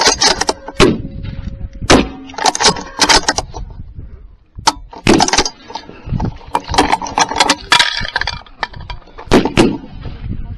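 A rifle's action being worked and handled: a dozen or more sharp metallic clicks and clacks in small clusters, as the shooter deals with repeated misfires.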